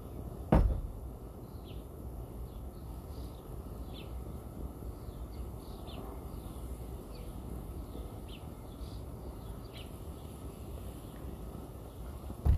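Outdoor ambience: a steady low rumble with birds chirping in short, high calls every second or so. A single sharp knock, the loudest sound, comes about half a second in.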